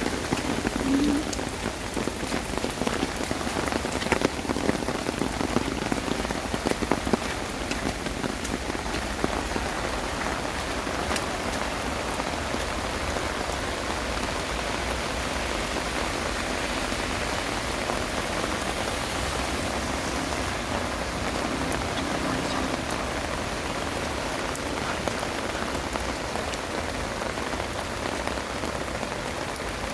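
Heavy rain falling in a steady hiss, with sharper individual drop hits during the first several seconds.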